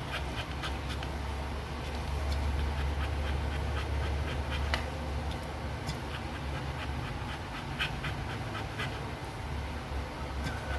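A female dog in labour panting rapidly, short quick breaths about four or five a second, over a steady low hum.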